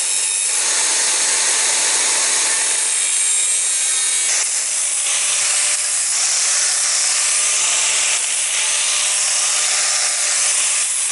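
Angle grinder grinding steel held in a vise: a continuous, loud grinding. About four seconds in the sound changes, with a low steady hum under the grinding after that.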